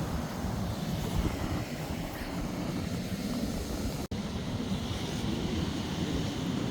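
Strong gusting wind buffeting the microphone, a dense, uneven low rumble. The sound cuts out for an instant about four seconds in.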